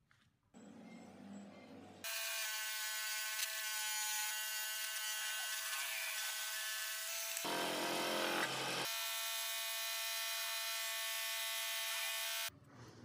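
Bandsaw cutting a wooden block: a steady high-pitched whine of blade and motor, with a lower, rougher stretch about halfway through, stopping abruptly near the end.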